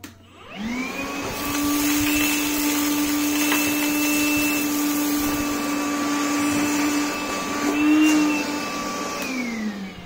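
Makita DVC750LZ 18-volt cordless vacuum spinning up with a rising whine, then running steadily while sucking up sand and small stones. The whine rises briefly about eight seconds in. Near the end the vacuum is switched off and the whine falls away.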